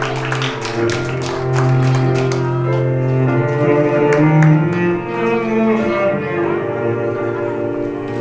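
Slow bowed-string music led by cello, with scattered clapping that dies away in the first few seconds.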